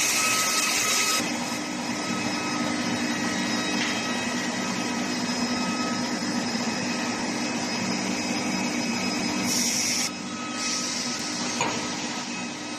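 Steel pipe induction tempering furnace line running: a steady machine noise with a low hum and faint steady whine tones. The high hiss drops off about a second in, surges briefly around nine and a half seconds, then drops again.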